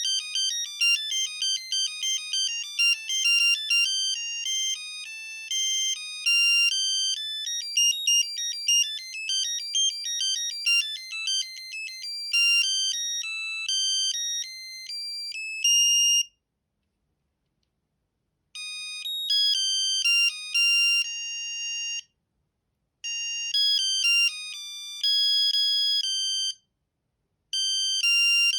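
Sony Ericsson T68i mobile phone playing its built-in ringtones one after another, as high, clean electronic note sequences. A long, fast tune of short notes stops about 16 seconds in. After a two-second silence, shorter tunes follow, each broken off by a brief pause.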